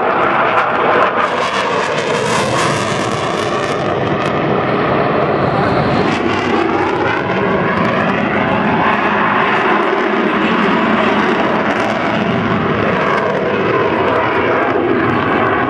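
Eurofighter Typhoon's twin EJ200 turbofan engines, a loud, steady jet noise as the fighter flies its display, with a slow sweeping, phasing shift in the noise as it moves across the sky.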